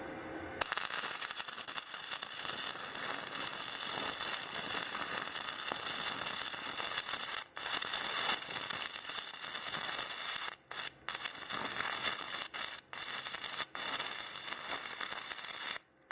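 Electric welding arc crackling and sizzling steadily as a weld bead is run, starting about half a second in, with several brief breaks where the arc goes out, and stopping just before the end.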